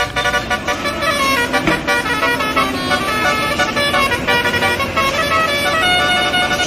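Multi-tone 'telolet' bus horn playing a tune, held notes that change pitch in steps, starting abruptly.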